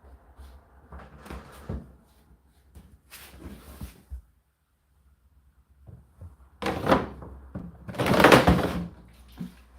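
Irregular rustling and knocks from things being handled, with a short quiet gap midway and a louder cluster of knocks and rubbing near the end, loudest about eight seconds in.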